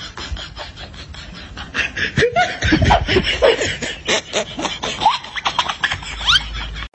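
People laughing in short rising and falling bursts over many quick clicks and taps. The sound cuts off abruptly near the end.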